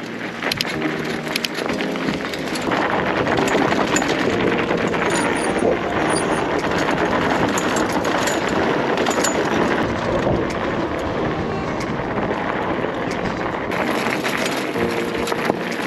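Bicycle tyres rolling fast over loose gravel and dirt on a downhill track: a steady rushing noise with scattered clicks of stones.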